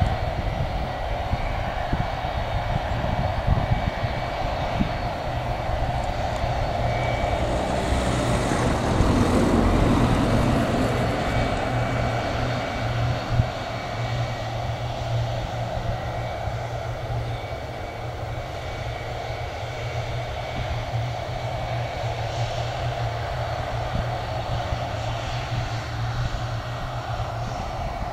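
Boeing 757 jet engines running at low taxi thrust as the airliner rolls slowly past: a steady engine whine over a low rumble, swelling slightly about nine seconds in.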